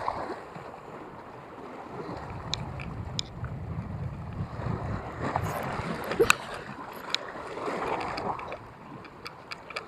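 Wind buffeting the microphone over sea water lapping, with a few sharp clicks scattered through.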